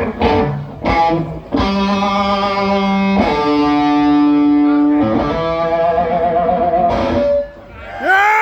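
Distorted electric guitar played live through an amplifier: a series of long held notes, one wavering with vibrato, ending in a note bent up and back down.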